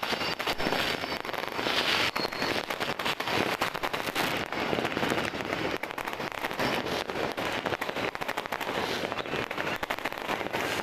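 Many fireworks and firecrackers going off at once: a dense, unbroken crackle of overlapping bangs.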